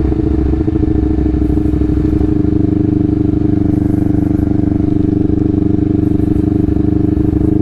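Honda CBR250RR motorcycle with an R9H2 aftermarket exhaust running at low rpm, giving a deep, steady exhaust note. The pitch eases down slightly in the first couple of seconds, then holds.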